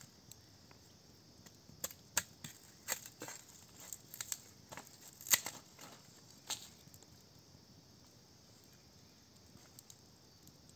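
Knife blade knocking and chopping against a split bamboo tube: about a dozen sharp, irregular hits, the loudest about halfway through, then they stop.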